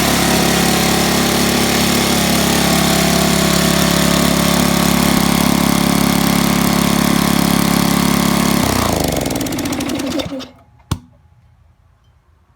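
Gas-engine-driven Campbell Hausfeld air compressor running steadily with no load, breaking in the rings of its freshly rebuilt pump. It is shut off about nine seconds in and spins down to a stop, and a single sharp click follows.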